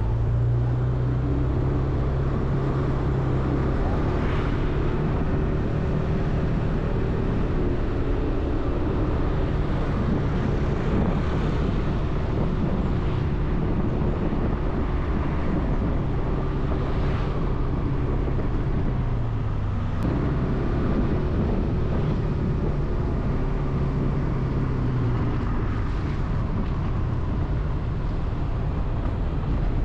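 Motor vehicle engine running steadily under a haze of wind and road noise while driving along. Its pitch dips and picks up again as it slows and speeds up, once about two-thirds of the way through and again near the end.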